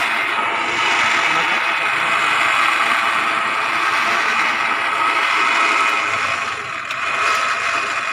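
Off-road vehicle driving along a rough trail: a steady, loud mix of engine and rattling terrain noise, which eases briefly about six and a half seconds in and then picks up again.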